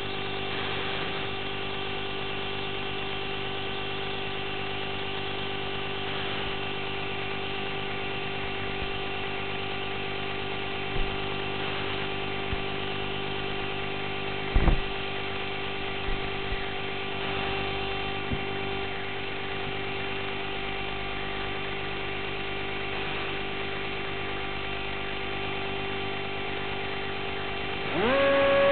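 Steady electrical hum with several fixed tones from the powered-up electronics of a Dynam HawkSky FPV plane, its motor stopped, with a few faint knocks. Near the end the plane's electric motor spools up with a rising whine and holds a higher steady tone.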